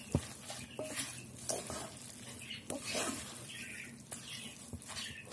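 A spoon stirring sautéed spinach and onions in a pot, scraping and knocking against the pan at irregular moments, over a light sizzle of frying.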